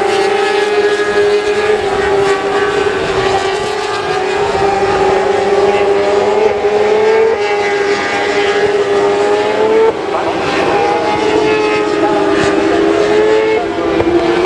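Several 600cc inline-four supersport racing motorcycles running at high revs. Their engine note climbs and then drops sharply three times in the second half as the bikes shift up through the gears.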